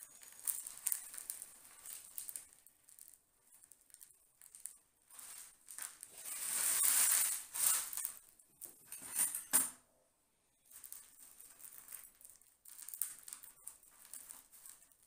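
Granular bonsai soil crumbling off a root ball under working fingers, the loose grains pattering and rattling onto a plastic tray. It comes in irregular bursts with sharp clicks, is loudest about seven seconds in, and pauses briefly around ten seconds.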